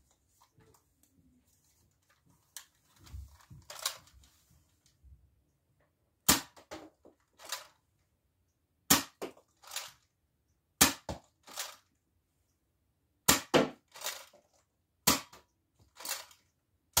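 Nerf Hammershot dart pistol firing: a sharp pop about every two seconds, five shots from about six seconds in, each followed by a softer knock or two. Fainter handling clicks come before the first shot.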